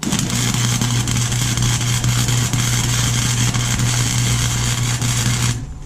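Chicago Electric 125 amp flux-core wire-feed welder laying a continuous weld bead: a steady crackle of the arc over a low electrical hum. It starts abruptly and stops sharply just before the end as the trigger is released.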